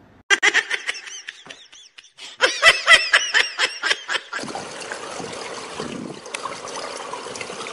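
Quick runs of high-pitched laughter in the first half, then the sound of pool water lapping and splashing.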